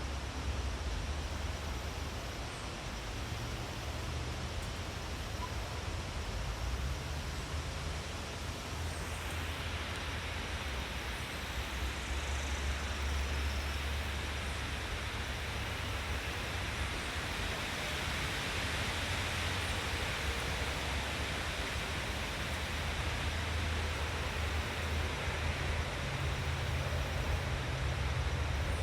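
Outdoor forest ambience: a steady rushing noise over a deep low rumble, turning brighter and hissier about nine seconds in.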